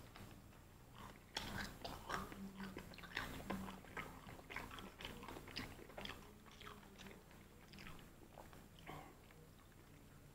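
Close-mic chewing of KFC fried chicken, the crisp batter crackling between the teeth in many short crunches, busiest in the first half and thinning out toward the end.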